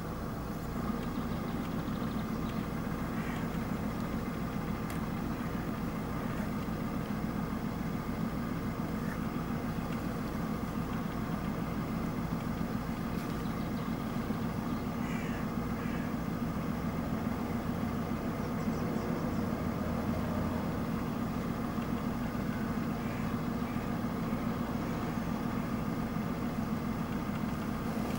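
Road vehicle engine idling with a steady low drone, with a few faint brief chirps now and then.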